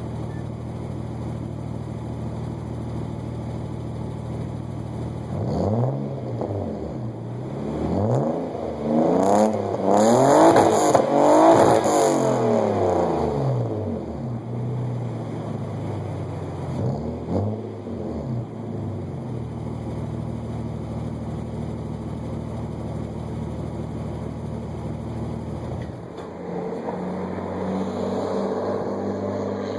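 Nissan R34 Skyline engine through an XForce Varex exhaust, idling and then revved in a quick run of throttle blips, with the pitch rising and falling each time; a couple more blips follow before it settles back to a steady idle, whose note shifts near the end.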